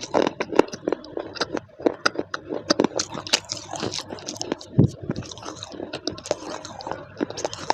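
Close-miked crunching and biting of baked clay pieces, a dense run of sharp, irregular cracks with a heavier crack just under five seconds in.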